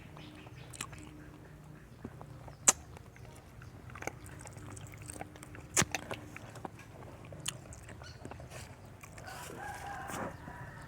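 A rooster crows once, about nine seconds in, a call lasting about a second and a half. A few sharp clicks come earlier.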